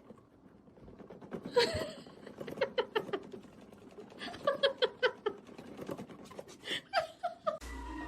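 A voice making three short runs of quickly repeated sounds. Just before the end a steady low rumble cuts in.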